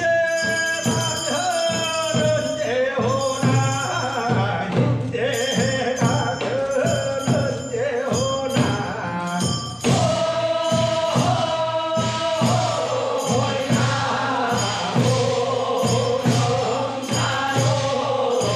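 Men's voices singing a Korean funeral bier song (sangyeo sori) in long, held notes, over a steady drum beat.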